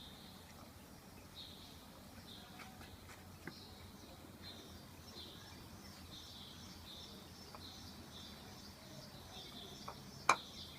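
Faint, high chirping repeating every half second or so, with a few soft clicks scattered through and one sharp click about ten seconds in.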